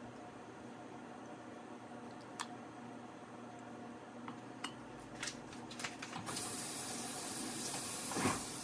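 Several sharp clicks, then at about six seconds a steady hiss comes on suddenly and keeps going: a gas stove burner being lit under the pot of dye water. A short louder thump near the end.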